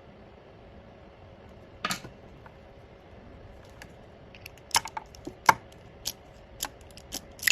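A few light, sharp clicks and taps of small hard objects being handled: one about two seconds in, then an irregular run of quick clicks in the second half. No machine motor is running.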